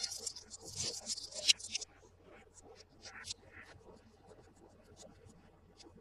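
Toy packaging being handled by hand: a dense crinkling and scratching for about two seconds, then only scattered faint clicks and taps.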